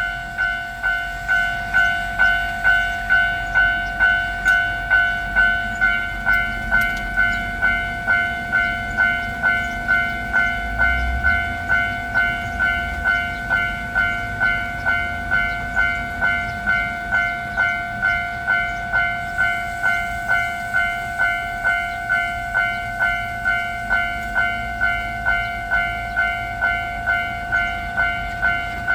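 Japanese railway level-crossing alarm ringing its electronic 'kan-kan' bell: one steady ding repeated at an even pace of a little under two strikes a second. A low rumble runs under it through the first half.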